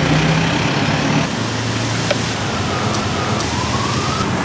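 Batter-coated banana fritters deep-frying in a large stainless steel fryer of hot oil: a dense, steady sizzle, with a low steady hum underneath and a sharp click about two seconds in.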